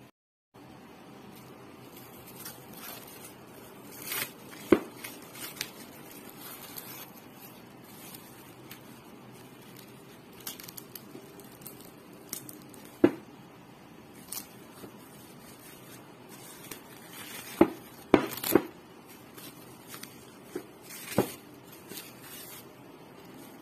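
Plastic cling film crinkling and tearing as a hand pushes through it into a bowl of risen bread dough, with soft squishing of the dough. Scattered sharp clicks and knocks sound over a steady hiss.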